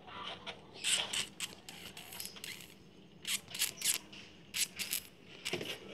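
Short scratching and scraping sounds in quick clusters of two to four, roughly every second, as kittens shift about and scratch in a wire cage.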